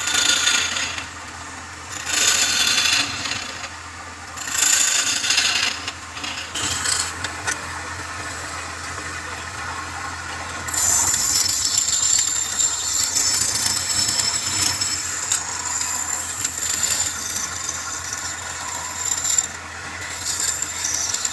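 Wood lathe running with a steady motor hum while a tool works the spinning wood: three short scraping passes in the first six seconds, then a longer continuous pass with a high whine from about eleven seconds in.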